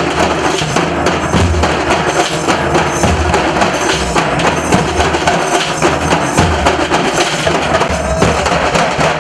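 Nasik dhol drums played live: a dense run of sharp stick strokes over heavy bass beats that fall about every second and a half.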